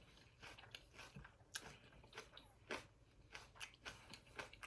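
Faint close-up chewing, a person eating with irregular soft mouth clicks and smacks.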